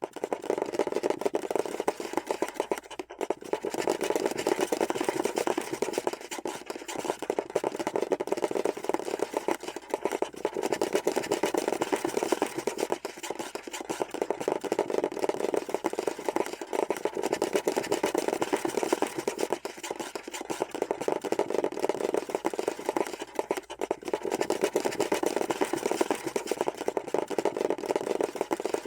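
Scurrying sound effect: a continuous, rapid, scratchy pattering, as of many small feet scrabbling over a surface, going on without a break.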